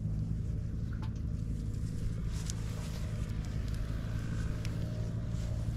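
A motor running steadily with a low, even hum, with a few faint clicks over it.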